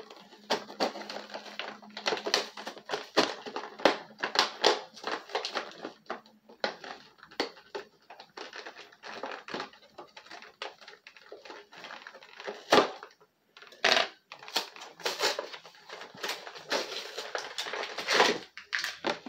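Plastic blister pack of a Mattel WWE action figure being pried open and handled: irregular crinkling and cracking of the plastic, with two sharper snaps about thirteen and fourteen seconds in.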